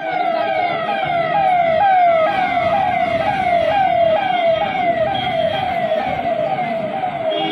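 Convoy escort vehicle's electronic siren sounding a fast falling sweep, about two a second: each sweep drops in pitch, then jumps straight back up, over the noise of vehicles passing.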